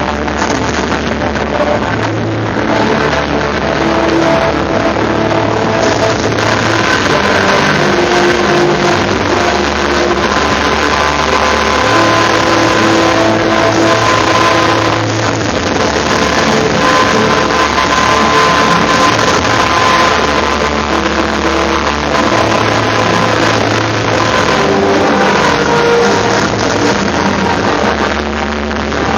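Music accompanying a fireworks display: long held notes over a bass line that comes and goes in blocks of a few seconds, on a dense background hiss.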